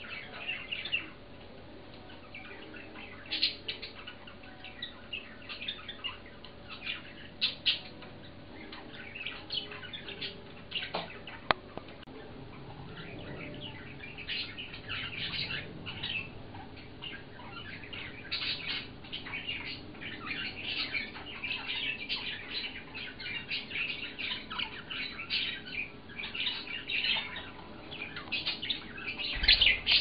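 Pet budgerigars chirping and chattering: many short, high chirps and squawks that grow busier about halfway through. A single sharp click sounds about eleven seconds in.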